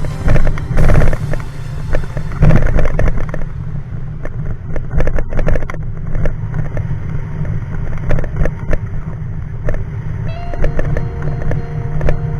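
Motorcycle riding over a rough, rain-damaged dirt road: a steady engine-and-wind rumble with scattered knocks and rattles from the bumps, and louder surges about half a second and two and a half seconds in.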